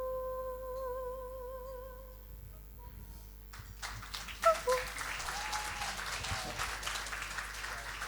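A singer holds a long final note that wavers into vibrato and fades out. About three and a half seconds in, audience applause breaks out, with a brief cheer in it.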